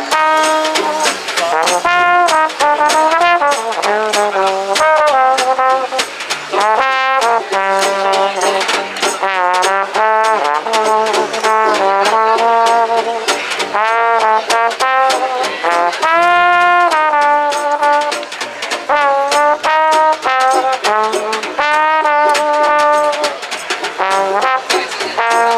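A small acoustic street band playing swing jazz. A trombone carries the melody, sliding between notes and adding vibrato on held notes, over a steady beat of snare drum and cymbal played with sticks, with an upright double bass underneath.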